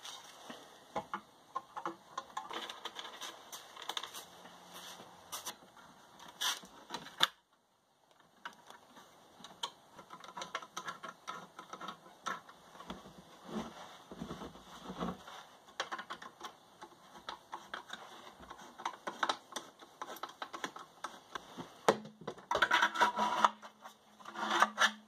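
Irregular clicks, taps and rattles of a plastic torch holster and a metal band hose clamp being fitted around a PVC pipe chamber by hand, getting busier and louder near the end as a propane cylinder is pushed into the holster.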